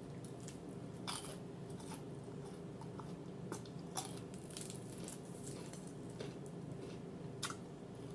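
A person chewing food close to the microphone, with scattered small mouth clicks and crunches, over a steady low hum.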